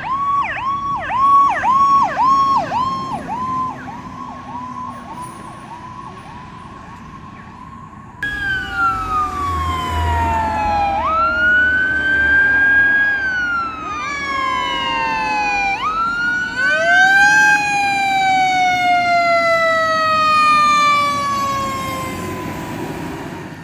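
Fire apparatus sirens. First an electronic siren pulses rapidly and then holds a steady tone. From about eight seconds in, several sirens sound together: a Federal Q2B mechanical siren winds up and coasts down twice, over electronic sirens gliding up and down.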